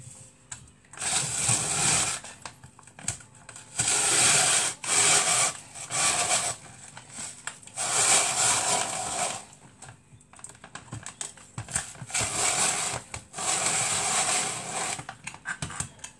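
Hand-operated kitchen chopper working through potatoes without electricity, in repeated whirring grinding bursts of about a second each with short pauses between.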